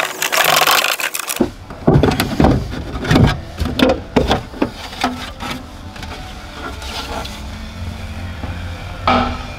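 A BMW M2's plastic boot side trim panel is being pried and pulled free, giving a quick run of knocks and scrapes as its clips let go, then a last knock near the end. A rushing noise fills the first second or so.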